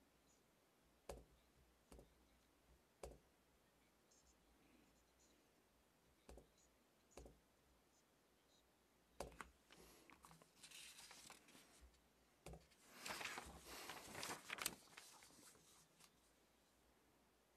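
Paper rustling as sheets of a printed text are handled and turned, loudest about thirteen to fifteen seconds in, after a few light isolated clicks in an otherwise quiet room.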